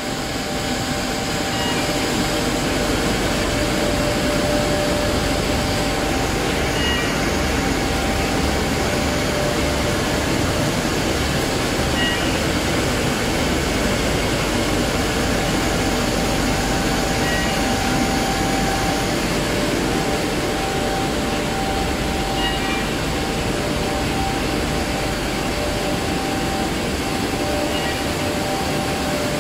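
COMEXI FJ 2108 CNC eight-colour central-impression flexo printing press running in production: steady mechanical noise with a constant hum, and a short, faint high chirp about every five seconds.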